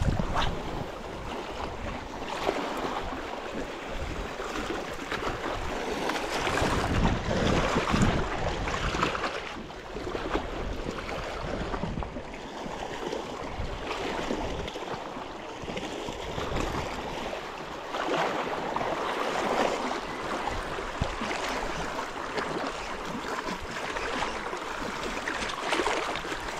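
Wind gusting across the microphone with small waves lapping at the reservoir shore: a steady rushing noise that swells and dips, with no engine or voice.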